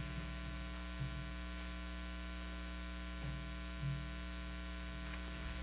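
Steady electrical mains hum, with a few faint low thumps.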